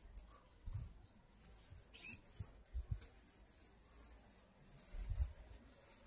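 Faint, high-pitched chirps repeating in quick clusters, with a few soft low bumps.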